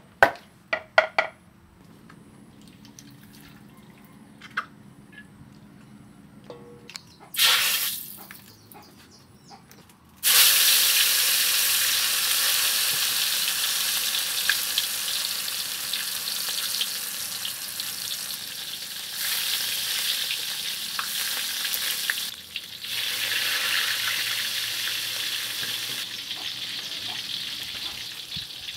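Whole fish deep-frying in hot oil in a wok: a sudden loud sizzle starts about ten seconds in and carries on, slowly fading, with a brief dip near two-thirds of the way through. In the first second, a wooden pestle knocks a few times in a clay mortar while pounding a spice paste.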